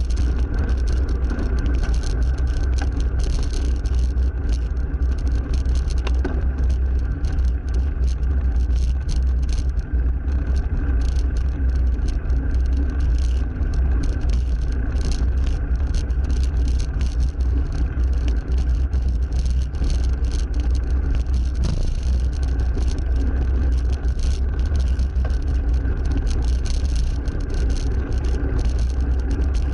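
Heavy, steady wind rumble on a bicycle-mounted camera's microphone while riding, with motor traffic passing on a busy road.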